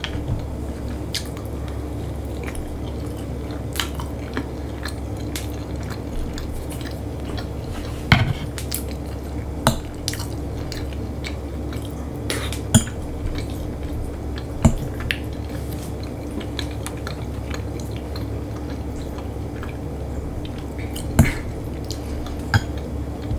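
Close-up eating sounds: a person chewing food, with scattered short clicks and taps of cutlery or dishes over a steady low hum.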